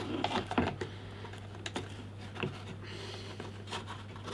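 Plastic hand-held welding mask being handled as its dark filter glass is slipped into place: light plastic clicks and rustles, busiest in the first second, then a few scattered taps.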